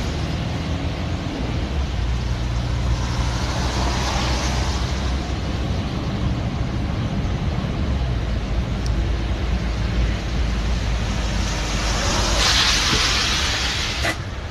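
Mahindra Scorpio diesel SUV at highway speed on a rain-wet road, heard from inside: a steady low engine and road drone under a broad hiss of tyres on the wet surface. The hiss swells louder near the end.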